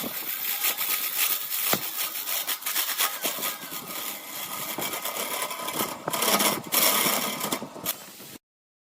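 Wood lathe running with a tool working the spinning workpiece: a dense scraping hiss that swells and fades, over faint steady tones from the machine. It cuts off abruptly shortly before the end.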